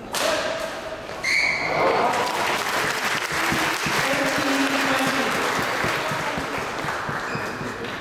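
A sharp racket hit on a shuttlecock at the start. About a second in, a crowd breaks into sustained applause and cheers, with a brief high-pitched shout as it begins.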